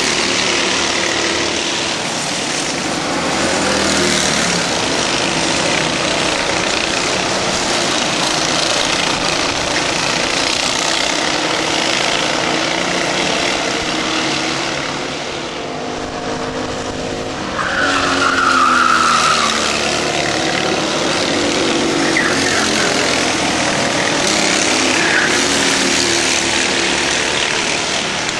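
Racing kart engines running hard as several karts pass, their pitch rising and falling through the corners. There is a brief high squeal about eighteen seconds in.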